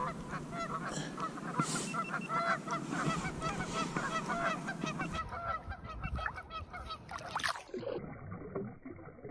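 A flock of birds calling: many short, overlapping honk-like calls, dense for about five seconds and then thinning out.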